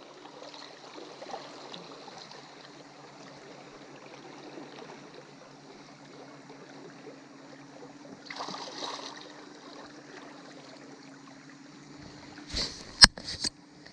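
Steady wash of river current around a wooden boat, under a faint low hum. There is a brief rush of noise about eight seconds in, and a few sharp knocks near the end.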